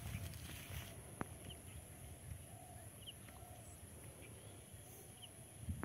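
Quiet rural ambience: faint, short bird chirps now and then over a steady high-pitched whine and a low rumble, with one sharp click about a second in.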